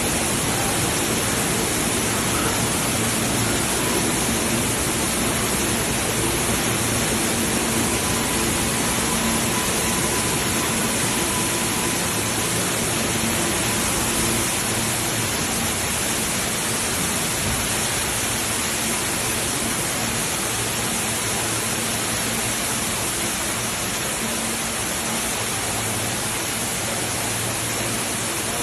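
Floodwater rushing and pouring in a steady, loud, unbroken roar, with a faint low hum underneath.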